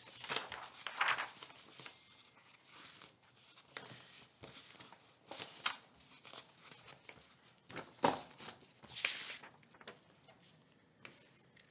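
Sheets of printer paper rustling and sliding across a desk as they are shuffled and swapped, in a series of short swishes, the loudest about 8 and 9 seconds in.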